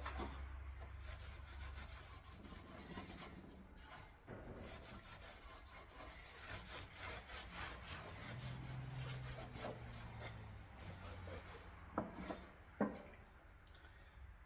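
A rag wet with lacquer thinner rubbing and wiping over a wire-brushed metal panel, in repeated short strokes, cleaning it ahead of paint. Two sharp knocks come near the end.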